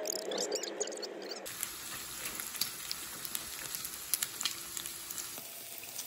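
Pork belly and kimchi sizzling on a griddle pan, a steady hiss with frequent sharp pops of crackling fat. It comes in abruptly about a second and a half in, after a short stretch of car-cabin noise.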